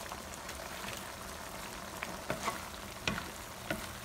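Squid, shrimp and vegetables sizzling steadily in a hot pan as they are stir-fried. In the second half a spatula clacks sharply against the pan about five times.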